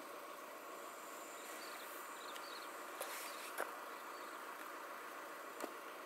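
Steady outdoor insect hum, with three faint sharp clicks in the second half.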